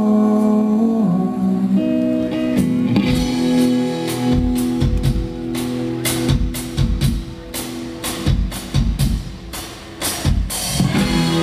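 Live rock band playing an instrumental passage between verses. A held chord gives way to a drum-led stretch of sharp drum and cymbal hits over guitar, with the full band coming back in near the end.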